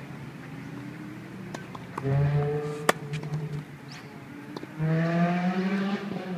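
A motor vehicle's engine pulling hard twice, with a short break between; the second pull climbs in pitch. A single sharp crack about three seconds in, most likely a racquet striking a tennis ball.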